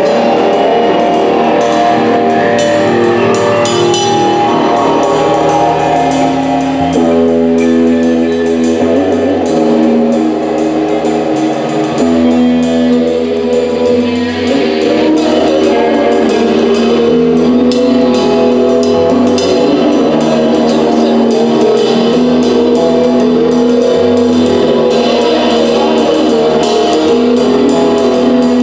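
Live rock band playing loudly: electric guitar chords over a drum kit, with constant cymbal and snare hits.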